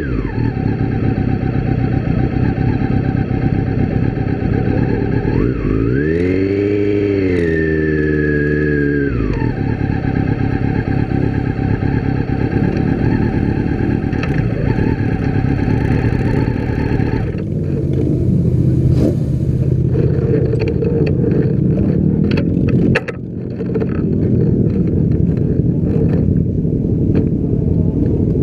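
Motorcycle engines running at idle, with one engine revved briefly about six seconds in, its pitch rising then falling back. Later the steady engine tone changes and short clicks and rattles come through.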